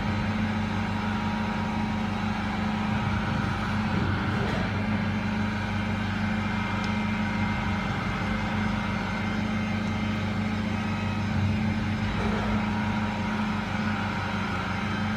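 CNC saw-blade sharpening machine running with a steady low hum and a constant mechanical whirr, unchanging throughout.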